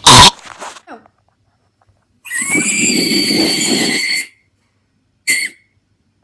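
A person's voice making silly noises: a short loud burst at the start, then a high, noisy sound held about two seconds, and a brief squeak of the same kind near the end, with dead silence between the sounds.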